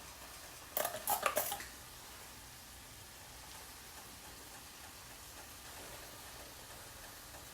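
A brief clatter of cookware about a second in, then a faint steady sizzle.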